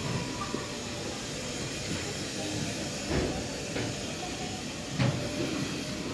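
Steady background noise of a shop-lined market alley, with a few short knocks about three seconds in and again near five seconds.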